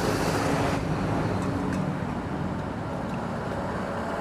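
A steady engine or motor hum with traffic noise. A brighter hiss fades out under a second in.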